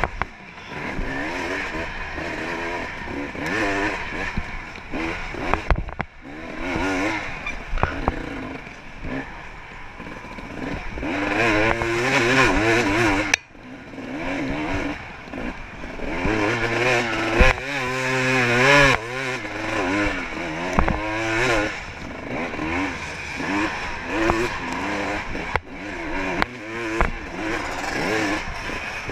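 Off-road dirt bike engine heard from on the bike, revving up and falling back over and over as the rider works the throttle, with occasional knocks from the rough trail. The sound cuts out for an instant about halfway through.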